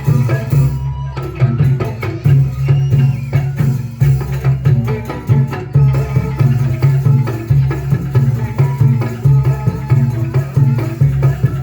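Band music with a steady beat, driven by hand drums and a strong pulsing bass under pitched melody instruments.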